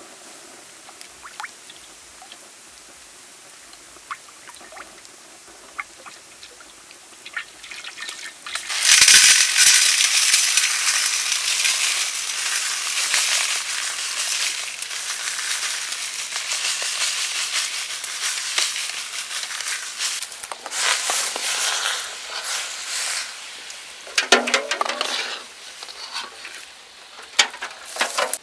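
Food frying in hot oil in a large steel wok, a loud sizzle that starts suddenly about nine seconds in and slowly dies down. It is preceded by a quieter stretch with faint crackles, and followed by two shorter bursts of sizzling near the end.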